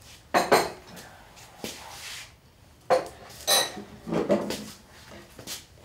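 Crockery clinking and knocking as cups are set down on a table: a handful of separate clinks and knocks, the brightest ringing clink about three and a half seconds in.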